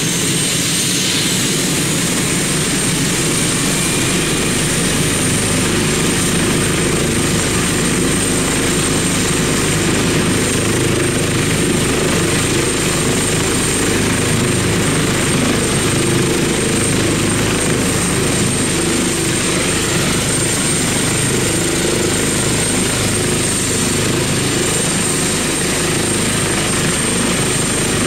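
Airbus H145 helicopter running on the ground with its rotors turning: a high steady turbine whine over the even beat of the rotor blades.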